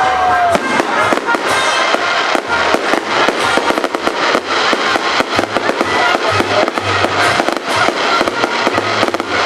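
Fireworks salute going off, a rapid, dense crackle of many bangs in quick succession, with music playing underneath.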